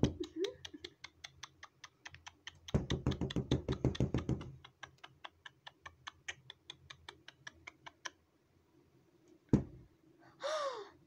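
Rapid light tapping of fingers on a hard surface, many quick clicks in a row, with a louder flurry about three seconds in. A single thump comes near the end, followed by a short falling squeak.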